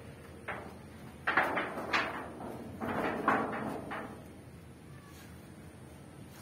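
Stones clunking and scraping against each other as they are handled and lifted from a pile, with a run of irregular knocks between about one and four seconds in and one sharp knock at the very end.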